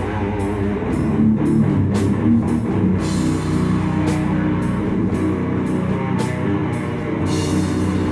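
Death metal band playing live: heavily distorted guitars and bass holding low riffs over a drum kit, with cymbal and drum hits about twice a second.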